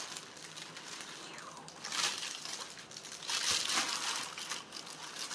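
Clear plastic wrapping around new boots crinkling as it is handled, in irregular bursts, loudest about two seconds in and again a little after three seconds.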